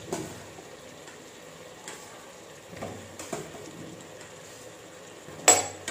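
Whole potatoes being spooned from a steel bowl into an aluminium pressure cooker: a series of short knocks and thuds, the loudest about five and a half seconds in, over a faint sizzle from the pot.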